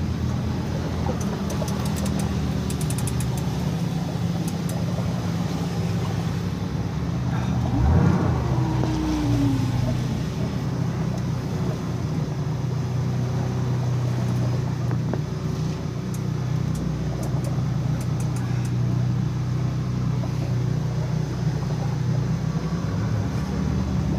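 Boat engine idling steadily, with short runs of fine clicking now and then and a single thump about eight seconds in.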